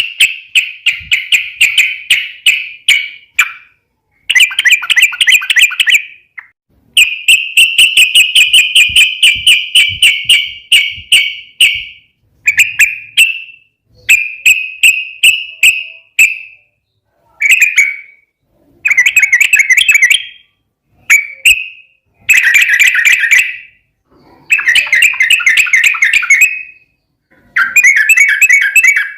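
Yellow-vented bulbul (trucukan) giving a fast ropel chatter: rapid runs of harsh, clicky notes in phrases of one to three seconds, broken by short pauses.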